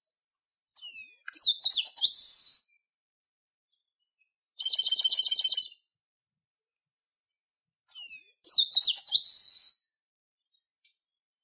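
Chestnut-capped blackbird (garibaldi) singing three phrases. The first and last are alike: quick down-slurred whistles ending in a harsh buzz. Between them comes a shorter, rapid rattling trill.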